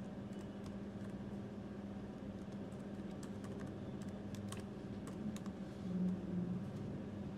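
Typing on a computer keyboard: faint, irregular keystrokes over a steady low hum.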